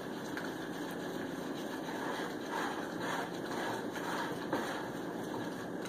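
Fork stirring and scraping in a bowl of thick powdered-sugar glaze, in repeated strokes about twice a second, over a steady background hum.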